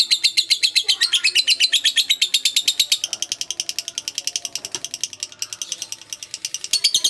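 Rapid high-pitched chirping, a steady train of about ten short pulses a second. It grows fainter through the middle and strengthens again near the end.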